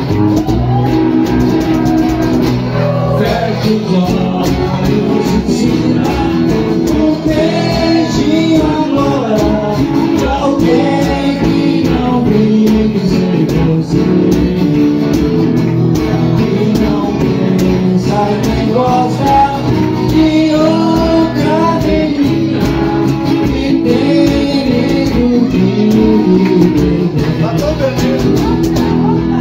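Two acoustic guitars strummed together, a steel-string and a nylon-string cutaway, with a man singing a melody over them.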